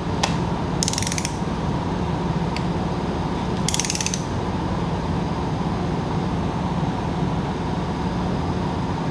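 A click-type torque wrench set to 22 ft-lb tightens BMW M20 head bolts in the first step of the torque sequence: two short bursts of ratcheting about three seconds apart, each shortly after a single sharp click, over a steady low hum.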